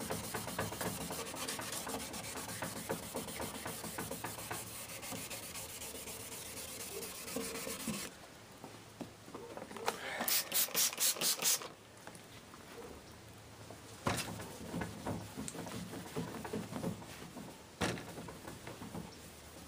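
Used 1500-grit sandpaper rubbed quickly back and forth by hand over a foggy plastic headlight lens, wet-sanding off the oxidation: a steady rasp that stops about eight seconds in. A couple of seconds later comes a quick run of about seven sharp hissy bursts, and near the end a rag wipes the lens.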